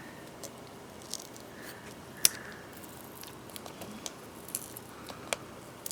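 Scotch tape being peeled back inside a laptop's screen assembly: faint scattered clicks and handling noises, with one sharper click a little over two seconds in.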